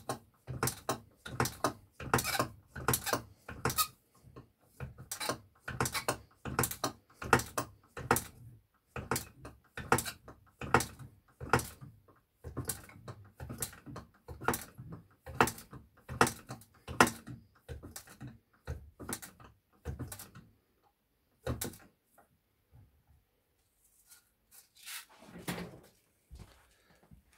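Homemade lever guillotine chopping 5 mm lead wire into slug cores: a steady run of sharp clacks, about two a second, that stops about 21 seconds in.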